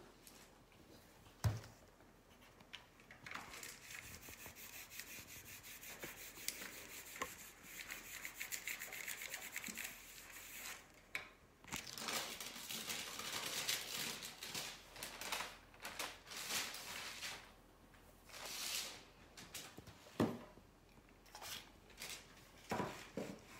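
Hands rubbing and smoothing decoupage tissue paper over a wooden stool seat: a papery rustling and scraping that comes and goes in strokes. There are two sharp knocks, one about a second and a half in and one near the end.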